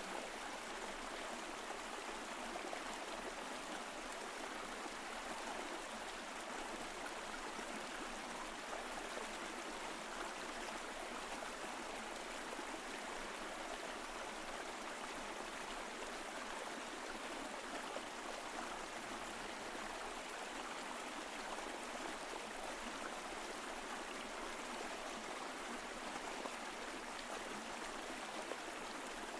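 Mountain stream flowing over rocks: a steady, even rush of water with no change.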